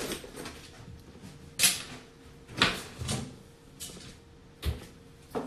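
A handful of separate knocks and clicks, about six in all, from objects being handled close to the phone's microphone, over a faint steady hum.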